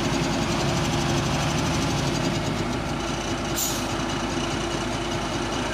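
Komatsu PC71 excavator's diesel engine running steadily, with a brief high hiss about three and a half seconds in.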